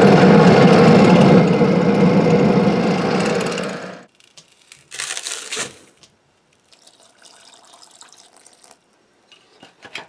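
Furnace burner with its blower running, a loud steady roar with a low hum, which stops about four seconds in. About a second later, dry castable refractory pours from one bucket into another with a short rush, followed by faint scraping as it is stirred with a wooden stick.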